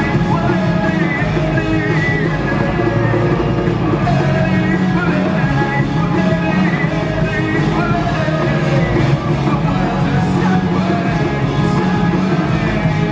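Rock band playing a song live, with a singer over electric guitars, bass and drums, loud and steady and heard from within the audience.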